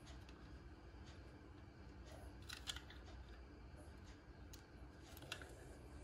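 Near silence with a few faint clicks of a small plastic toy car being handled in the fingers, a short cluster about halfway through and another near the end.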